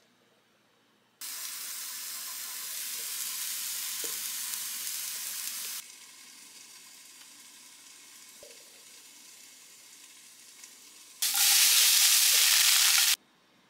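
Food sizzling in a frying pan, in edited cuts. A steady sizzle starts about a second in and drops abruptly to a fainter hiss, then near the end a much louder sizzle of potatoes and broccoli frying in a skillet cuts off sharply.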